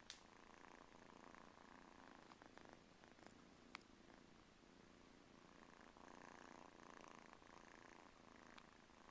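Several kittens purring together, a faint, steady purring chorus, with two small clicks.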